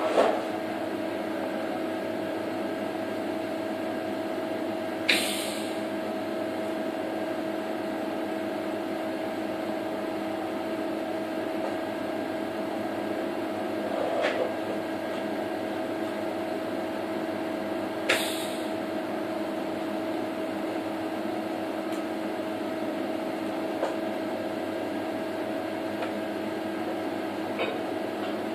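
Steady two-tone hum of running workshop equipment, with a handful of short, sharp ticks spaced several seconds apart.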